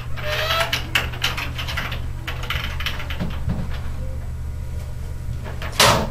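A series of small clicks and rustles over a steady low hum as an office door is unlatched and swung open, then a single sharp slap near the end as a folder is set down on a table.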